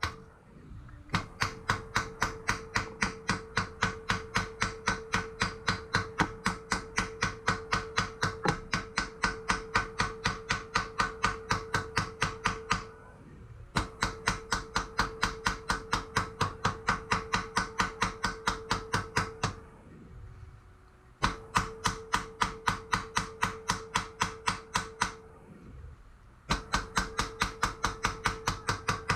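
Hammer rapidly striking a rivet to set it in a metal breastplate, about four or five blows a second, with the plate ringing under the blows. The hammering comes in four runs with short pauses between them.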